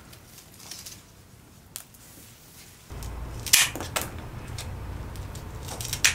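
Leafy flower stems rustling as they are handled, then scissors snipping through the green stems: a few sharp snips in the second half, the loudest about halfway through.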